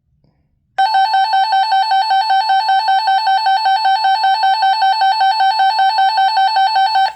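Weather radio's alert siren sounding in test mode: a loud electronic alarm tone warbling about five times a second. It starts under a second in and cuts off abruptly just before the end.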